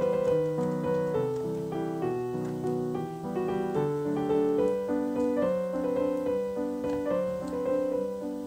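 Background piano music: a gentle melody of held notes moving step by step over a simple accompaniment.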